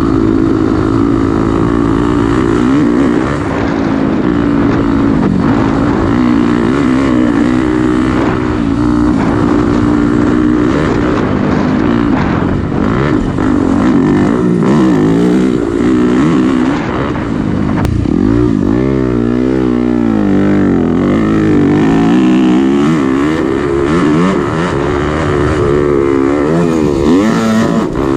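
Dirt bike engine under way, its pitch rising and falling continuously as the throttle is worked over rough ground, with a quick drop and climb in revs about two-thirds of the way through.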